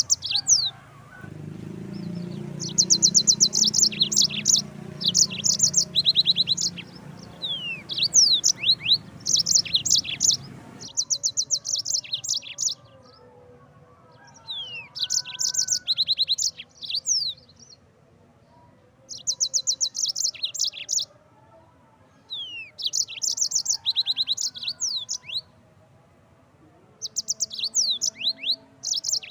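Yellow-fronted canary (Mozambique canary) singing: phrases a second or two long of rapid, high trills and quick sweeping notes, repeated with short pauses between them.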